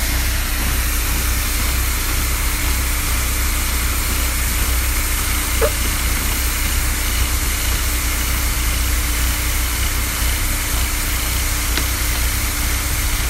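Mini excavator's diesel engine idling steadily, a constant low hum with a steady hiss over it.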